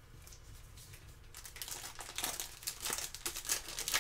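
Foil trading-card pack wrapper crinkling as it is handled and pulled open by hand, starting about a second and a half in as a dense, irregular crackle.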